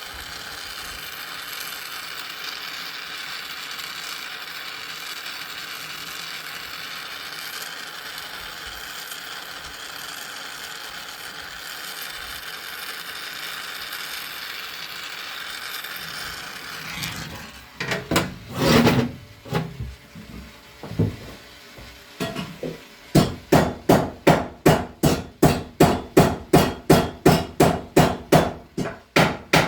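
Torch flame burning with a steady hiss while a bent tip of a stainless steel boat propeller is heated. After about seventeen seconds it stops, a few scattered knocks follow, and then a hammer strikes the heated blade tip evenly about twice a second to straighten it.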